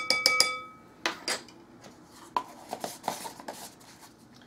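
A measuring spoon tapped several times in quick succession against the rim of a mixing bowl, each tap ringing briefly. After that come lighter clicks and rubbing as the plastic lid is handled and pressed back onto a tub of baking powder.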